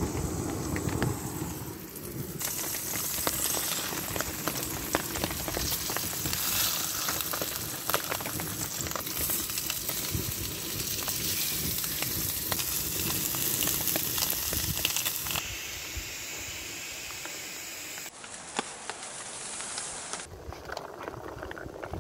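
Fish fillets and a tuna steak sizzling as they fry in a wide pan, with scattered clicks and scrapes from a spatula against the pan.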